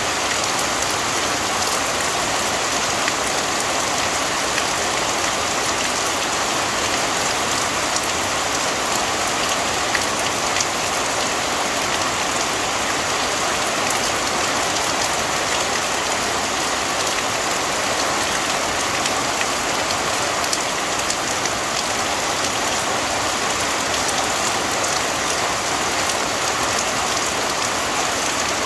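Rain falling steadily: an even, unbroken hiss of drops with faint scattered ticks of single drops hitting a surface.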